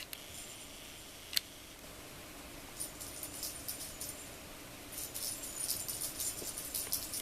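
Small jingle bell shaken in quick, irregular bursts of jingling that start about three seconds in and get busier near the end, as a cat plays with it. A single sharp click about a second in.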